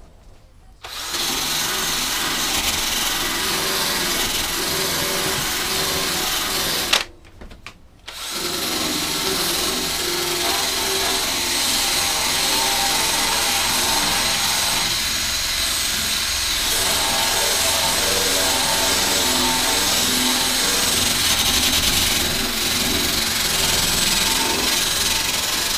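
Power drill spinning a wire wheel brush against the rusty steel of a lawnmower deck, scouring off rust and flaking paint. It runs steadily, stops briefly around seven seconds in, then starts again.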